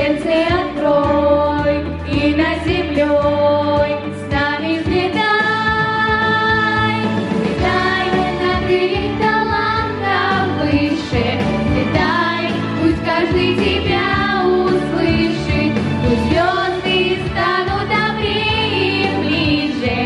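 A girls' vocal group singing a song together into handheld microphones, with instrumental accompaniment.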